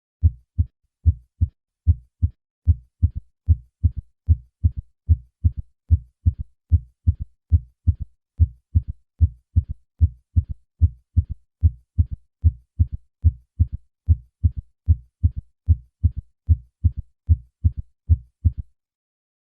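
Stethoscope recording of a heart beating steadily in a galloping rhythm of low thuds: the first and second heart sounds followed by an early-diastolic third heart sound (ventricular gallop). In patients over 40, such a third heart sound suggests left ventricular failure. The beats stop about a second before the end.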